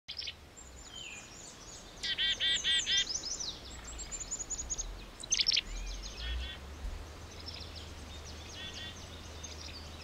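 Several songbirds singing over one another, with high thin trills and chirps and a loud run of quick repeated notes about two seconds in.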